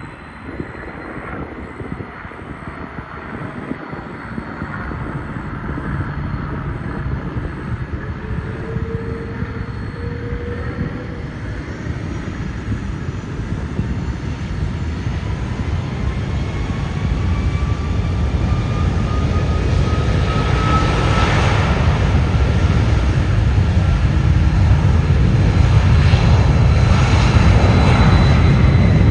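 Boeing 747-400 jet engines at takeoff power, growing steadily louder, with an engine whine that rises in pitch over a deep rumble.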